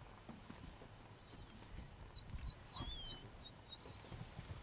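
Faint high chirps of small birds repeating irregularly, with a few thin whistled notes among them.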